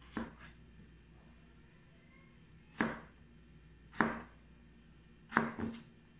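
Chef's knife slicing through peeled chayote onto a plastic cutting board: four separate cuts a second or so apart, each a sharp knock with a short scrape, the first and last followed by a lighter second tap.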